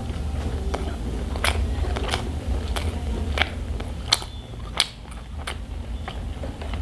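A person chewing crisp food close to the microphone, with about five sharp crunches spread through the bites, over a low steady hum.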